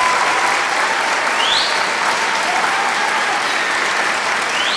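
Audience applauding steadily, with two short rising whistles, one about a second and a half in and one near the end.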